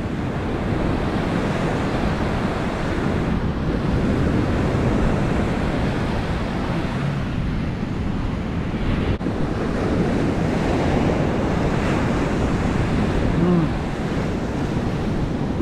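Ocean surf breaking and washing up the sand, a steady rush with wind buffeting the microphone.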